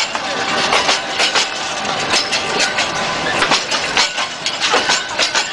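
Passenger train carriages rolling slowly past a platform, with a steady rumble and a rapid, irregular clatter of knocks from the wheels and couplings.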